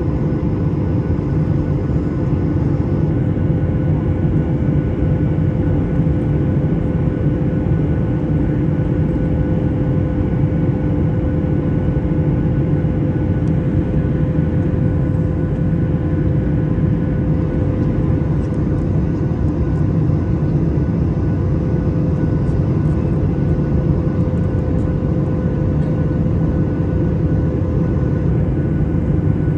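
Steady jet engine and airflow noise heard inside an airliner cabin in flight: a constant roar with a few held humming tones over it.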